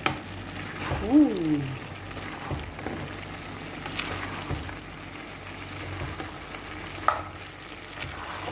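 Minced beef with onions and bell peppers frying in a nonstick pan, a steady sizzle. A few sharp clicks come through it, and about a second in there is a brief pitched sound that rises and falls, the loudest moment.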